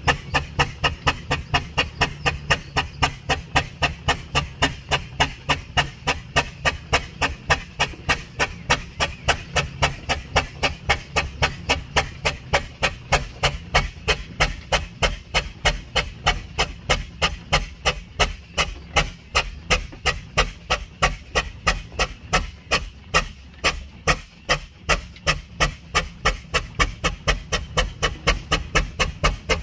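Steam engine running steadily, its exhaust beats or valve gear knocking in a fast even rhythm of about five strokes a second over a steady low hum.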